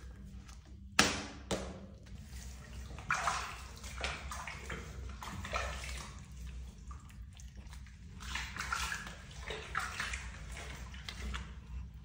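Water sloshing and splashing in a plastic tub in irregular bursts as hands wash a cat sitting in it, with one sharp knock about a second in.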